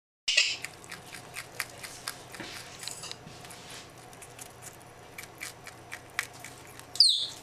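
Arctic ground squirrel nibbling a carrot: small, irregular crunching clicks of its teeth on the carrot, several a second. Near the end comes one brief, sharp, high call falling in pitch, louder than the chewing.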